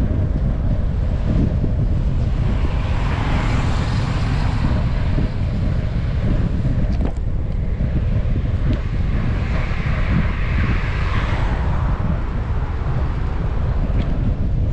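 Wind buffeting a GoPro's microphone while riding a bicycle, a steady low rumble, with two cars passing, their tyre and engine hiss swelling and fading twice.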